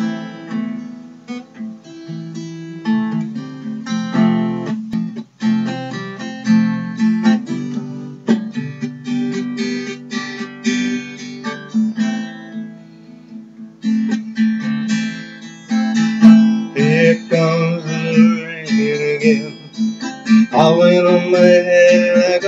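Solo acoustic guitar, strummed and picked in a steady rhythm. In the last few seconds a man's voice joins over it without words.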